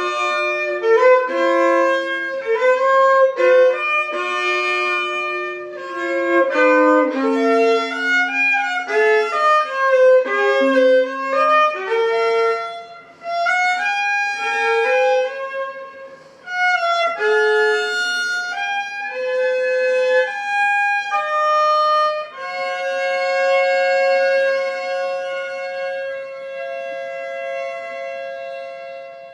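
Baroque violin playing a melody of quickly changing notes, then settling from about two-thirds of the way in on a long held double stop that fades away at the close.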